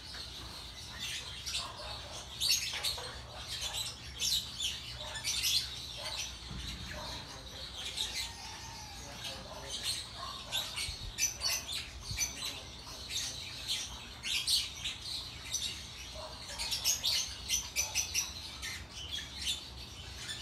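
Small birds chirping, many short high chirps in scattered clusters, with a few lower calls mixed in.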